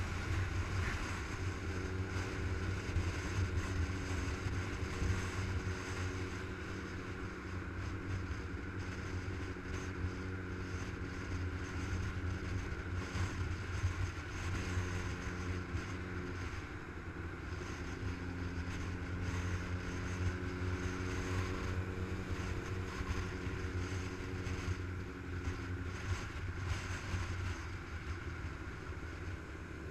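Motorcycle engine running at a steady cruising speed, a deep rumble whose pitch shifts a little a few times, with wind rushing over the microphone.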